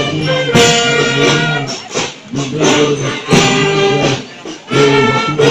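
Marching music with a steady beat and sustained pitched tones, accompanying a parade.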